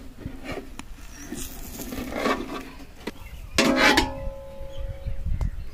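Long metal ladle scraping and knocking against a large aluminium cooking pot while cooked chicken biryani rice is turned over. One louder clank about three and a half seconds in leaves the metal ringing for a second or two, with a low rumble underneath.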